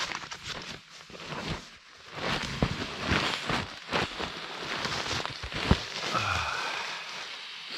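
Crinkling and rustling of an inflated synthetic-insulated sleeping pad (Exped SynMat HL Winter) and clothing, with irregular knocks and crackles, as a person kneels, sits and lies back on the pad, pressing the air out of it to deflate it.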